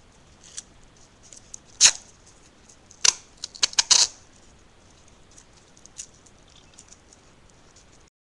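Adhesive tape being pulled off its roll and wound around a cardboard tube, in short sharp crackling rips: one about two seconds in and a quick cluster between three and four seconds, with faint handling ticks between.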